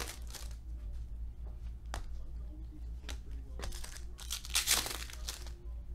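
Foil trading-card pack wrappers crinkling and tearing open by hand, in two bursts: one at the start and a louder one about four and a half seconds in, with a few light clicks in between.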